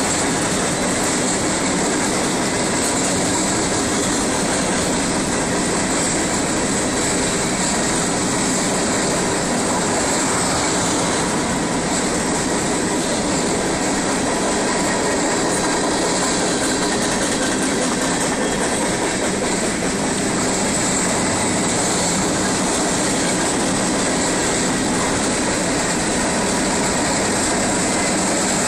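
Freight train cars rolling past, a steady, unbroken noise of steel wheels running on the rails.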